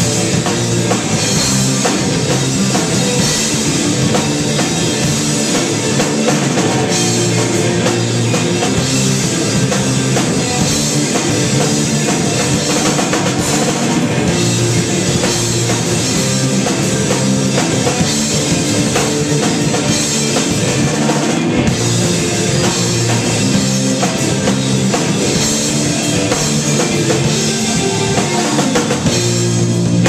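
Live rock band playing loud and steady: electric guitars over a drum kit with bass drum and cymbals.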